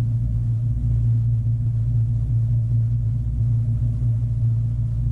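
A motor running at a steady speed: a loud, even, low hum that does not change.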